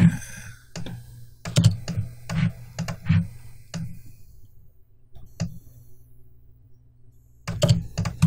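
Clicks of a computer keyboard and mouse, single sharp clicks about two a second. After a pause of about two seconds near the end comes a quick run of clicks.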